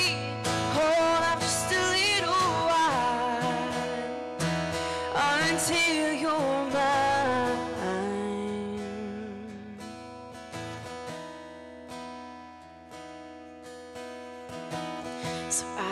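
Live acoustic pop song: a steel-string acoustic guitar strummed, with a woman's voice singing sliding notes over it for the first several seconds. The music then quietens to softer guitar notes before picking up again near the end.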